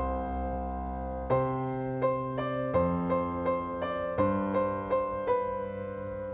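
Background music: a gentle electric piano playing a slow melody of repeated notes over held chords.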